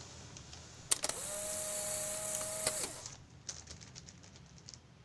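A steady whirring hum, starting with a click about a second in and lasting about two seconds, its pitch rising as it starts and dropping as it stops. Then plastic mailer parcels rustle and tap lightly as they are handled on a table.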